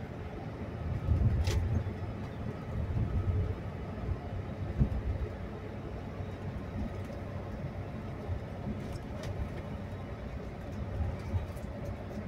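Inside a moving double-decker bus on the highway: a steady low rumble of engine and road noise, swelling briefly near the start, with a sharp knock about a second and a half in and another about five seconds in.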